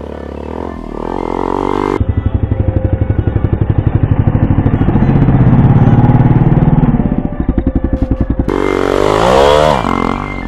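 Minsk X250 dirt bike's single-cylinder four-stroke engine revving hard as it approaches and takes a jump. It passes close by with a falling pitch near the end as it rides away.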